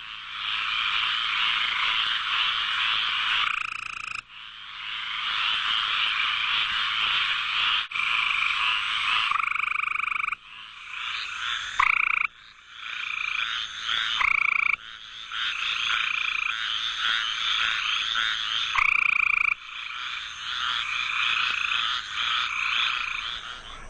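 A dense chorus of frogs croaking, sometimes several calling over one another, with a few short calls that slide down in pitch near the middle. The chorus is cut abruptly several times as one recording gives way to another.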